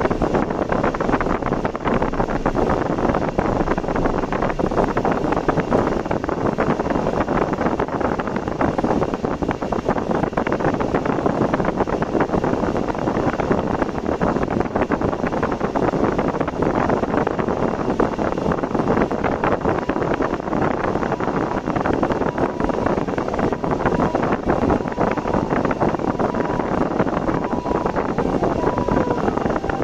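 Steady road and wind noise of a car being driven, with no break in the level. Near the end a faint steady tone comes in.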